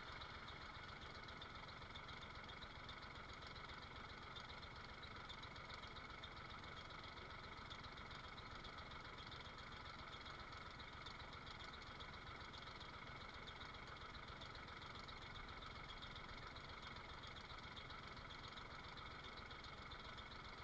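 A faint engine idling steadily.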